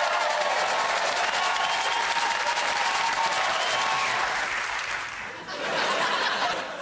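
Studio audience applauding, the clapping dying away about five seconds in.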